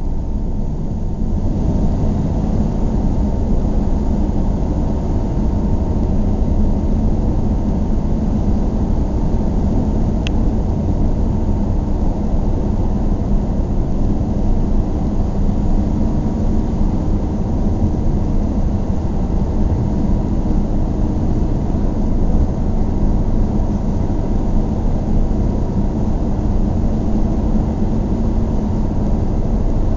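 Car driving along a town street: steady low rumble of tyres on the road and the engine, with a single faint click about ten seconds in.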